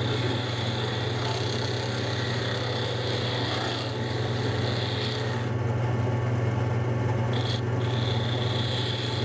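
Wood lathe running with a steady motor hum while a turning tool cuts decorative grooves into a spinning tropical-hardwood spindle, giving a high scraping note. The scraping stops for a couple of seconds past the middle, then resumes.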